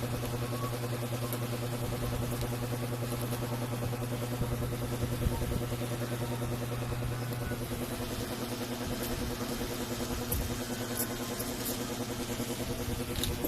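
Electric ceiling fan running steadily: a constant motor hum with a rapid pulsing whir from the turning blades.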